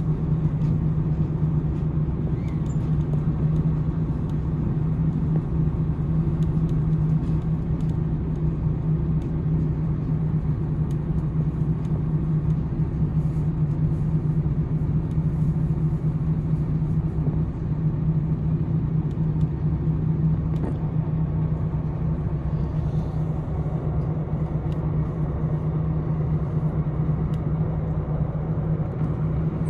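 Diesel limited-express railcar running steadily at speed, heard from inside the passenger car: a constant engine drone over the rumble of wheels on the rails, with a few faint ticks.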